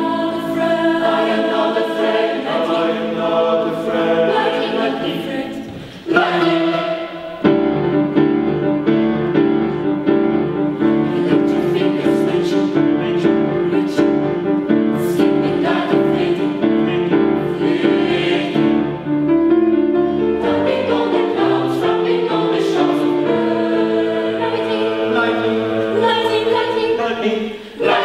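Mixed youth choir singing a song in several parts. The sound thins briefly about six seconds in, then returns fuller and louder.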